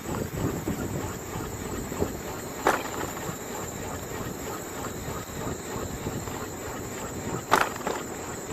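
Steady high-pitched insect chorus over a low rumble of wind and movement noise on the microphone, with two sharp clicks, one about three seconds in and one near the end.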